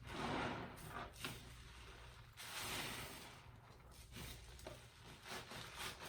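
Wet sponge being squeezed in water, giving several separate squelches: one at the start, a short one about a second in, a longer one in the middle and another near the end.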